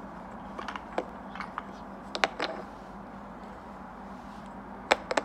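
Wooden toy blocks clacking as they are handled and set down against the surface and each other: a few light clicks, a cluster about two seconds in, and a sharp pair near the end.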